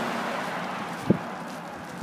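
Road traffic noise from a car passing close by, fading away, with a single short knock about a second in.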